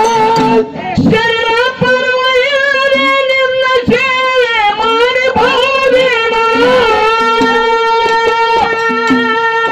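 Male folk singer singing long, held and wavering notes of a Kannada dollu-song (dollina pada), with a few drum strokes underneath.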